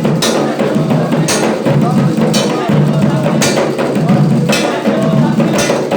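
Ilú drums playing a steady ritual rhythm, with a heavy accented stroke about once a second over a busy pattern of lighter beats. Singing runs over the drums.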